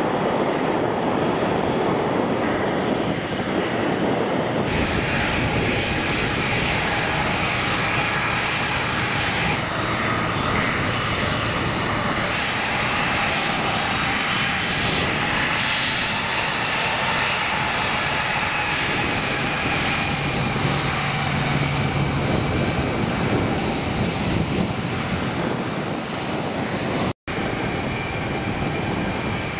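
Boeing 747 jet engines running as the airliner taxis, a steady rush of engine noise with high whining tones over it. The sound changes abruptly a few seconds in and drops out for an instant near the end.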